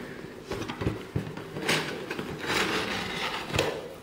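Cardboard box flaps and inner cardboard packaging being handled: scraping and rustling of cardboard with a few light knocks.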